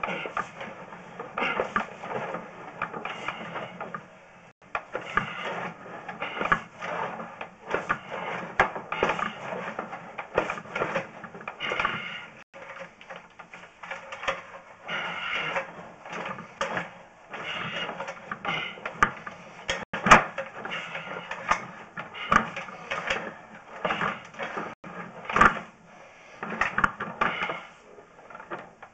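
Sewer inspection camera's push cable being fed and shoved down a drain line, giving an irregular clatter of scraping and knocking. The loudest knocks come about 20 and 25 seconds in.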